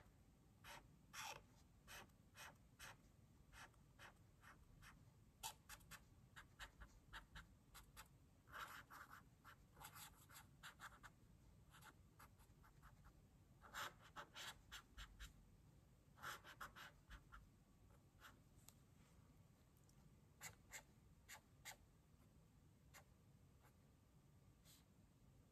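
Felt-tip marker scratching on paper, faint: a string of short, irregular pen strokes as a small drawing is outlined and filled in with hatching, with busier runs of scribbling at a few points.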